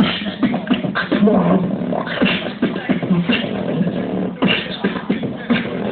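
Live beatboxing through a microphone and small portable amplifier: a continuous run of mouth-made drum beats.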